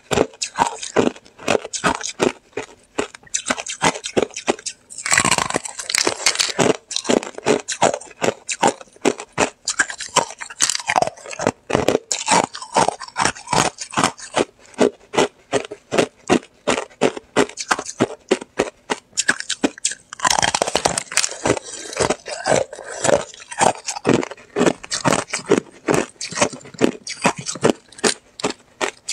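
Thin sheets of ice crackling and snapping as they are broken apart by hand: a steady run of sharp clicks, with two denser crackling bursts, about five seconds in and again about twenty seconds in.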